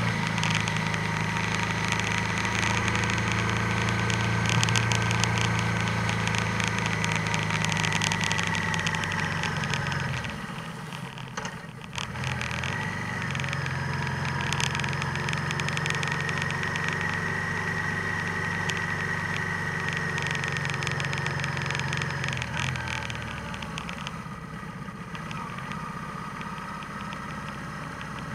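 Vehicle engine running on the move, with a steady high whine above the engine note. It drops away briefly about ten seconds in, then picks up again, and quietens near the end as the vehicle slows to walking-town speed.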